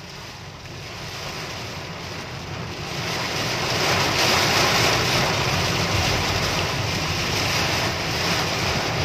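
Torrential rain and wind hitting a car's windshield and roof, heard from inside the cabin. The downpour grows clearly louder about three seconds in and stays heavy.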